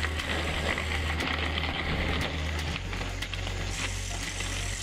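Road bike rolling slowly over a gravel path, the tyres crunching with many small crackling clicks, over a steady low rumble of wind on the bike-mounted camera's microphone. The rear hub's freewheel ticks as it coasts.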